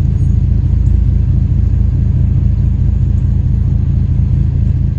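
Loud, steady low rumble with no clear pitch, fading out right at the end.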